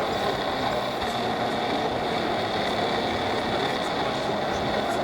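Radio-controlled model construction trucks running with a steady, engine-like idling drone, over continuous hall background noise.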